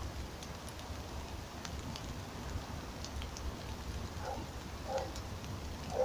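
Faint outdoor ambience: light wind rumbling on the microphone, with scattered small ticks and a few soft rustles.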